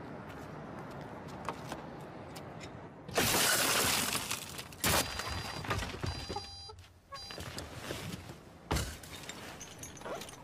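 A car window smashed about three seconds in, a burst of breaking glass lasting about a second, followed by a few short electronic beeps and, near the end, a single thump.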